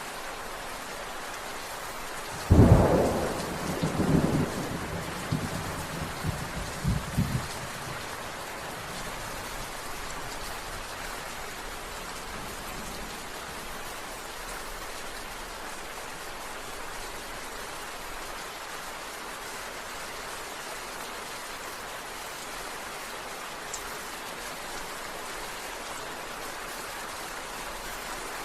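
Steady heavy rain hissing, with a thunderclap about two and a half seconds in that cracks sharply and then rumbles in several rolling peals for about five seconds before dying away into the rain.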